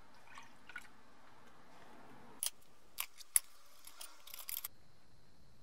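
Small objects handled on a wooden workbench: a few sharp clicks and taps, the loudest about three and a half seconds in, then a quick cluster of small clatters as rusty drill parts and the rust-remover bottle are moved.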